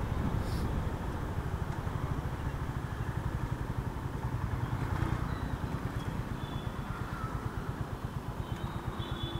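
A motorcycle engine running at low speed, heard from the rider's seat, with road noise. As the bike slows, its exhaust settles into an even pulsing beat in the last few seconds.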